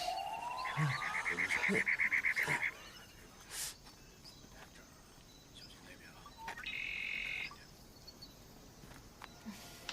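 Jungle animal calls: a rising whistle, then a fast pulsed trill for about two seconds, and later a short buzzing call, over quiet background ambience.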